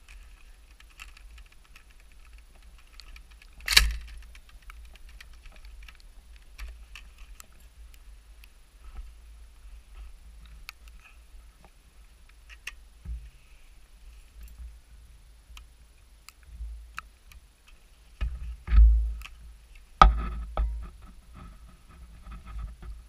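Handling noise from a soldier's gear and weapon against a body-worn microphone: scattered small clicks and rubbing over a low wind rumble, with one sharp click or knock about four seconds in and heavier knocks near the end.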